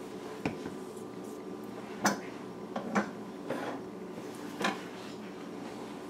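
A few light, scattered clicks and taps of kitchen items being handled, over a faint steady hum.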